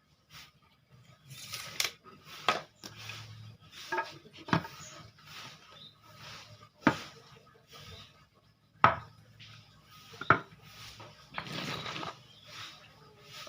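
Irregular sharp knocks and clinks of wooden pieces and tools being handled and set down on a hard surface, with a short scrape about eleven and a half seconds in.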